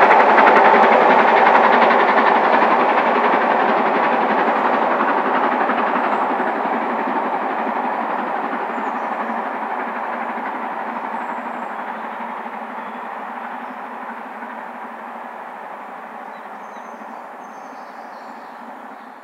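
Steam-hauled passenger train's coaches rolling past on the track, the noise fading steadily as the train draws away into the distance.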